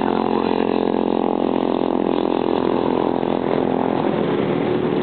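Motorcycle engines running steadily as bikes ride past on the circuit.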